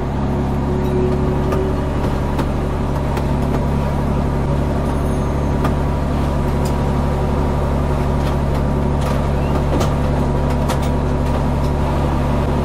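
Fire engine's diesel engine and pump running steadily, heard from inside the cab as the deluge gun puts water on the burning vehicle. A few light clicks sound over it.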